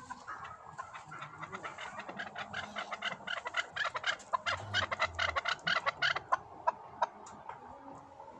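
Young chukar partridge calling: a rapid run of short, sharp notes, several a second, sparse at first, thickest through the middle and thinning toward the end.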